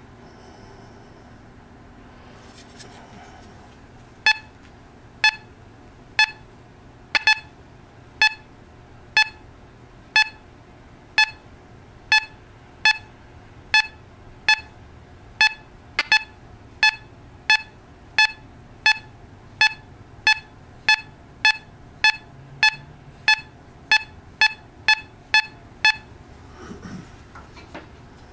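Teknetics Gamma 6000 metal detector giving short target beeps at a single pitch as a coin is swept past its coil. The beeps start about four seconds in at about one a second, speed up to nearly two a second, and stop near the end, about thirty in all.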